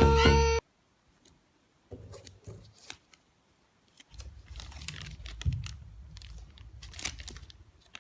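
Background music cuts off just after the start. Then a popcorn package is handled and opened: scattered crinkling, tearing and clicking, with a low rumble of handling noise from about four seconds in.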